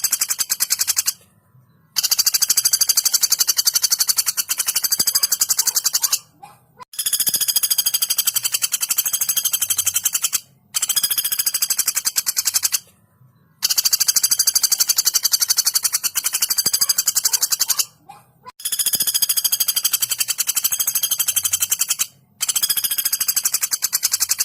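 Female pelatuk bawang (a flameback woodpecker) giving long, fast, high rattling calls, one after another. There are about six calls, each a few seconds long, with short breaks between them.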